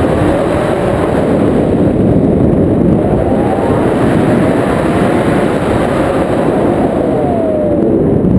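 Loud, steady wind rushing over an action camera's microphone in flight under a tandem paraglider. A couple of faint tones glide in pitch through it, one around the middle and a falling one near the end.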